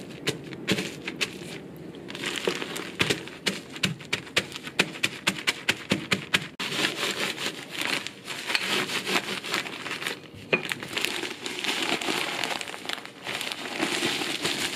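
Wooden rolling pin knocking on biscuits in a plastic zip bag, a run of quick sharp knocks, then, about halfway through, rolling back and forth over the crumbs with a steady crunching and crinkling of the bag.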